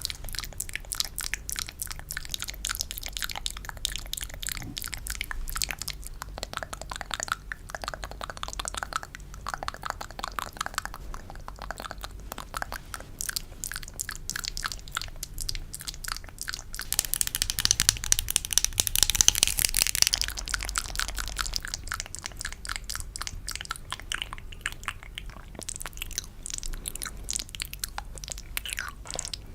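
Close-miked ASMR wet mouth sounds of the 'spit painting' kind: a dense stream of small moist clicks and smacks, getting louder and crisper for a few seconds past the middle.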